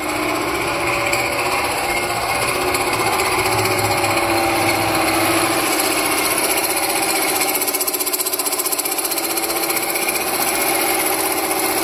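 Metal-cutting shop machine running steadily as it cuts two steel Y-bone parts at once in a jig, a loud continuous whine with a rapid chatter.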